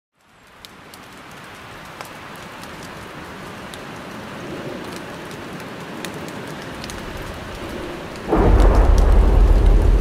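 Steady rain hissing with scattered drop ticks, fading in at the start. A little past eight seconds a loud thunderclap breaks in suddenly and carries on as a deep rumble.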